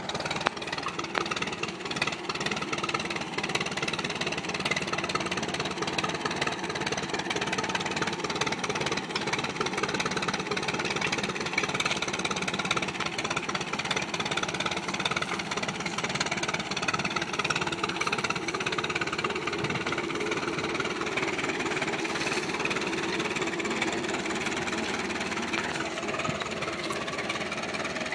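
Farmall F-20 tractor's four-cylinder engine running steadily, with a fast, even beat of firing pulses.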